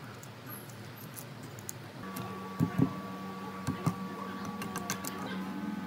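A knife blade scraping and prying dry bark off a log, with scattered clicks and a few sharp knocks a little past the middle. A steady hum comes in about two seconds in.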